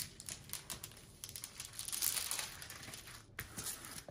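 Irregular crinkling and rustling of plastic with small crackles and clicks, from a diamond painting canvas and its kit packaging being handled.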